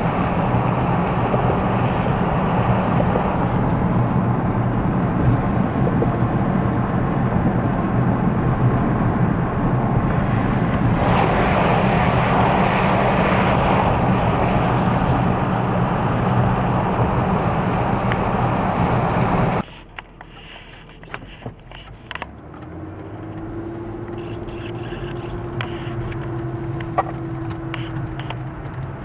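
Steady storm wind rushing over a low, even vehicle engine hum. About twenty seconds in it cuts off suddenly to a much quieter stretch with a faint drawn-out tone and a few clicks.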